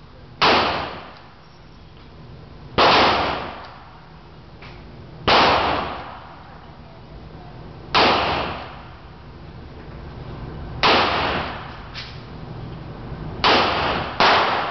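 Smith & Wesson 686 stainless .357 Magnum revolver with a 6-inch barrel firing .38 Special rounds: seven single shots at a slow, steady pace about two and a half seconds apart, the last two closer together. Each sharp report echoes and dies away in the enclosed indoor range.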